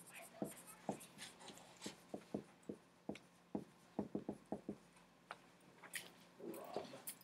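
Dry-erase marker writing on a whiteboard: a faint run of short taps and squeaks as letters are stroked on, with a soft rustle near the end.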